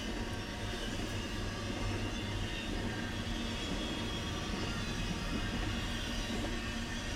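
Double-stack intermodal freight train rolling steadily past: the well cars' steel wheels running over the rail joints with a continuous low rumble.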